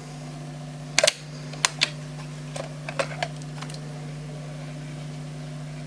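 Several sharp clicks and knocks from a vintage cassette deck's mechanism being handled, a pair about a second in, two more just after and another pair about three seconds in, over a steady low hum. The deck's transport is stuck: on play the tape barely turns.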